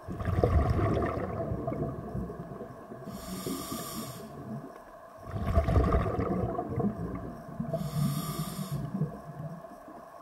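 Scuba diver's breathing through a regulator, heard underwater: a rumble of exhaled bubbles, then a hissing inhale, repeated twice.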